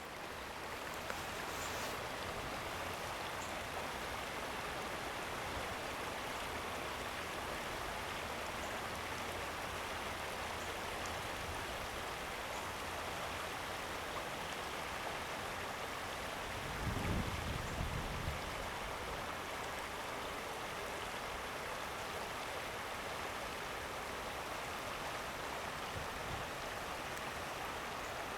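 Steady rushing of a flowing stream, with a brief low rumble about two-thirds of the way through.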